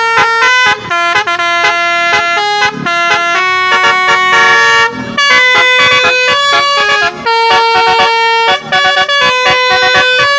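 Telolet multi-tone bus horn playing a quick melody, short notes mixed with longer held ones and brief breaks between phrases.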